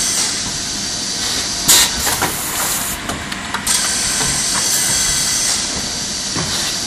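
Multi-spindle line boring machine running, a steady hiss with a faint high whine, swelling twice, with two sharp blasts about two seconds in.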